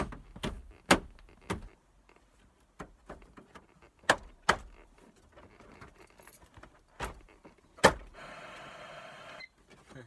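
Sharp plastic clicks and knocks, eight or so, as truck dash and console trim pieces are pushed and snapped back into place. Near the end there is a short, steady rasping buzz lasting about a second.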